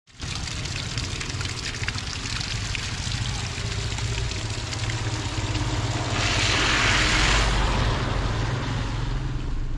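Car driving along a road, with a steady low engine hum under road and wind noise, and a louder rush of noise about six seconds in that lasts about a second.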